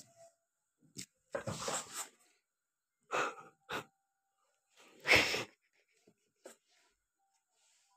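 Several short, breathy hissing bursts from a person's mouth, the loudest a little after five seconds in.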